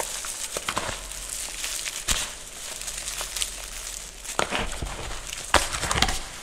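A hand crushing and crumbling dry gym chalk chunks and powder: a continuous gritty crunching with sharper cracks now and then, the loudest about two seconds in and again near the end.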